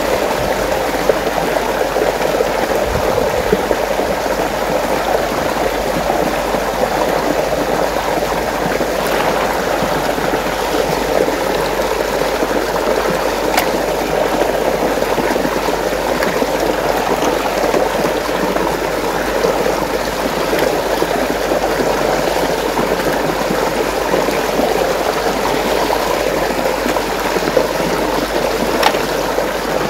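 Water swirling and rushing steadily in a whirlpool, with a few faint light clicks.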